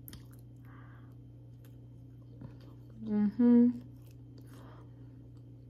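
A woman's closed-mouth hum of two short notes, the second higher, like a satisfied "mm-hmm", about three seconds in, over quiet room tone with a steady low hum.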